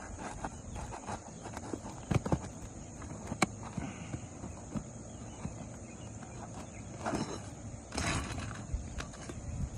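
Roofing nail being worked out from under lifted shingles with a hand tool: scattered clicks and knocks, with a short scrape about 7 seconds in and another about 8 seconds in.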